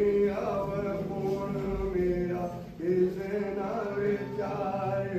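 A man chanting a Sikh hymn in long, held, melodic phrases, with a brief pause about two and a half seconds in.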